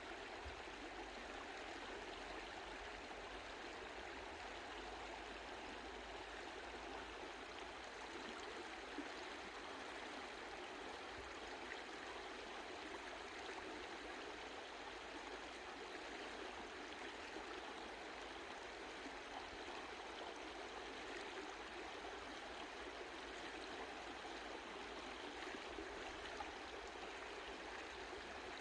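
Mountain stream flowing in a steady, even rush of water, gentle rather than rough.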